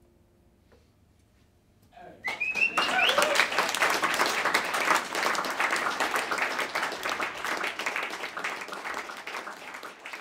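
Audience applause breaking out suddenly about two seconds in, with a whoop or two at its start, then slowly tapering off. Before it, the last ringing note of the jazz band fades away.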